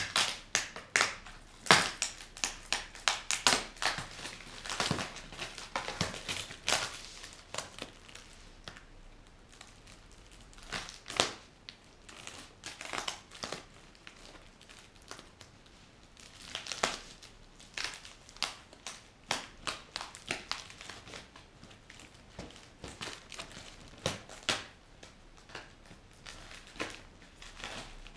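Plastic parcel wrapping crinkling and rustling as it is handled and pulled open by hand, in irregular spells of crackles with a couple of quieter pauses.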